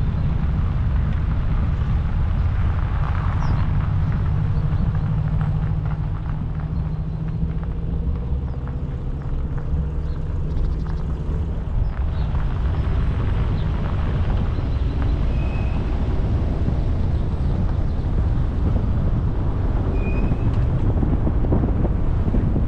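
Street traffic and wind rumbling on the microphone, with a vehicle engine humming past between about 5 and 12 seconds in.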